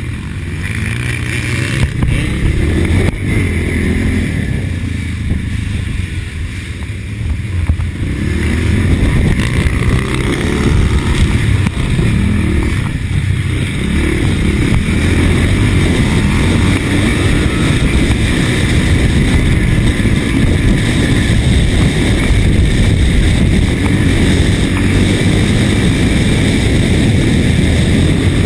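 1983 Husqvarna TC 500 motocross bike being ridden, its two-stroke single running under heavy wind buffeting on the microphone. The noise eases a little a few seconds in, then builds again and holds.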